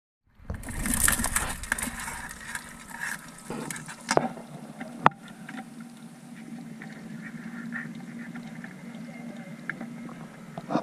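Water sloshing and splashing, loudest in the first couple of seconds, with two sharp knocks about four and five seconds in.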